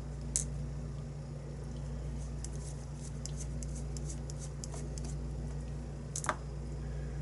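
Scattered faint clicks and ticks from a challenge lock and its key being handled, with a sharper click about six seconds in, over a steady low hum.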